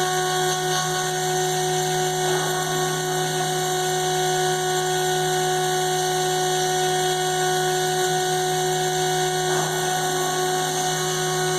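CNC router spindle running steadily, a constant whine with several fixed tones. There is a brief rise in noise about two seconds in and again near the end.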